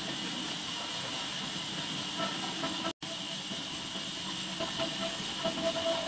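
Band sawmill running between cuts: a steady mechanical hiss and hum with no cutting heard. The sound drops out for an instant about halfway through.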